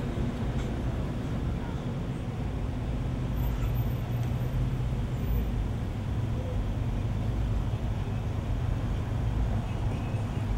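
A vehicle engine idling steadily, a low even rumble with no revving.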